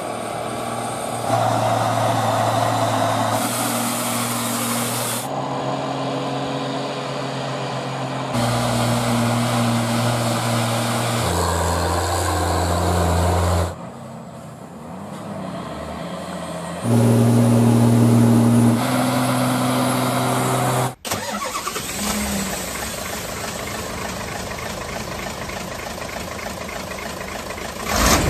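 Diesel engines of Hino dump trucks hauling stone, pulling up a long steep climb, heard as a string of short clips. Each clip is a steady engine drone, and the pitch and loudness change abruptly every few seconds.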